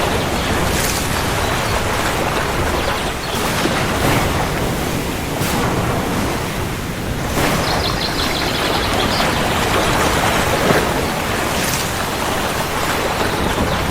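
Heavy rain falling steadily, a dense even hiss with a few brief louder spatters.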